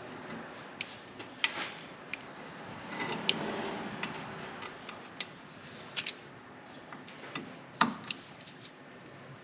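Metal brake parts and hand tools clinking as rear brake hardware is fitted to an axle: scattered sharp clicks and taps, with a brief scraping rustle about three seconds in.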